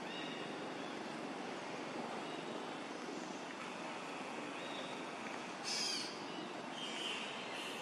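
Forest ambience: a steady background hush with faint high bird calls. A brief, louder high-pitched call comes just before six seconds in, and a weaker one follows about a second later.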